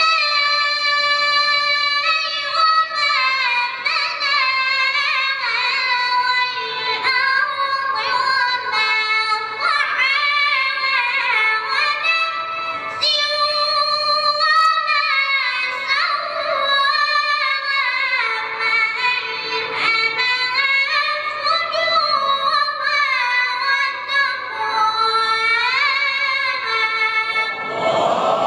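A single high-pitched voice singing a long, ornamented melody, its pitch winding up and down through drawn-out notes. It breaks off near the end.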